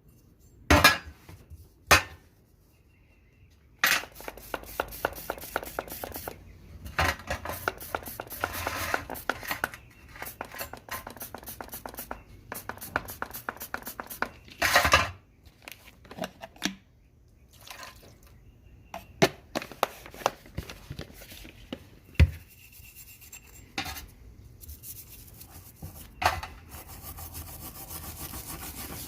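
A hand wire brush scrubbing the rusty steel parts of a vintage McKaig-Hatch adjustable wrench in long runs of quick strokes. A few sharp metal clinks sound as the parts are handled.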